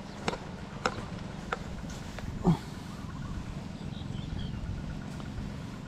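A few sharp clicks and taps in the first two seconds as a just-landed fish and the lure are handled on the grass, with a short grunt about two and a half seconds in.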